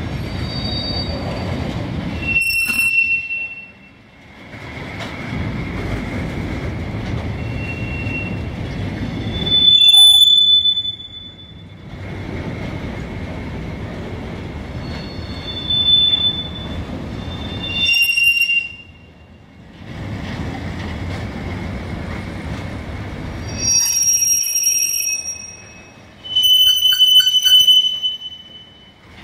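Freight train of intermodal flat wagons loaded with tank containers rolling past, with a steady rumble of wheels on rail. The wheels squeal in several short, high-pitched bouts.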